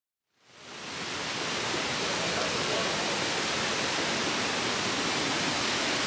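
Steady rush of flowing river water, fading in over about the first second.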